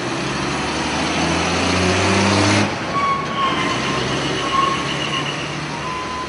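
Street traffic: a heavy road vehicle's engine drones and grows louder for about two and a half seconds, then drops away suddenly. Fainter thin steady tones follow.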